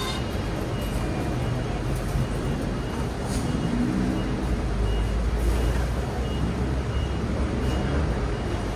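Hong Kong double-decker electric tram on the move: a steady low rumble mixed with street traffic noise, a little louder around the middle. Over it a faint short high beep repeats about twice a second.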